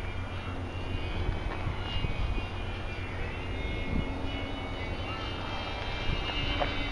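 ParkZone P-47 electric RC plane's motor and propeller whining overhead, the pitch dipping and climbing again about three seconds in. Wind buffets the microphone with a low rumble underneath.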